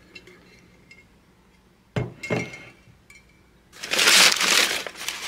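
Glazed pottery pieces clinking against other china: a few light ringing ticks, then a sharper double clink about two seconds in. From about four seconds in, loud crinkling of tissue packing paper as the next piece is unwrapped.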